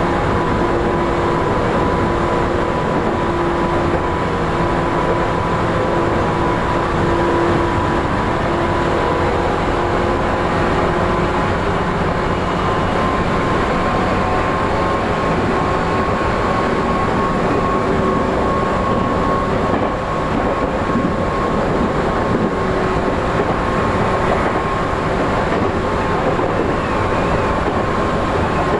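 Tokyu 8500 series electric train running at speed, heard from inside the front car: steady rumble of wheels and running gear under the loud hum of the traction motors. A steady motor tone climbs slightly about halfway through.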